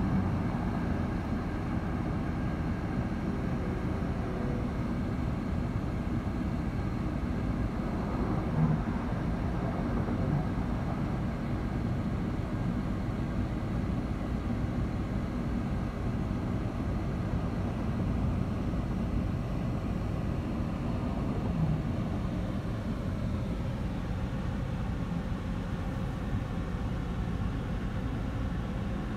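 Steady road and engine noise inside a moving car's cabin, with a couple of light low thumps, one about nine seconds in and one near twenty-two seconds.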